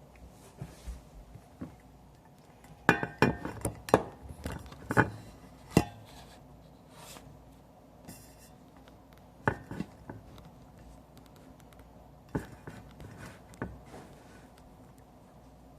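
Hard objects clinking and knocking as they are handled, in irregular clusters: a busy run about three to six seconds in, then a few more around ten seconds and again a little before the end.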